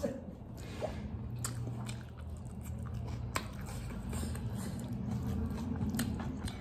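Close-miked chewing of a mouthful of rice and vegetable pakora, with a few sharp wet mouth clicks.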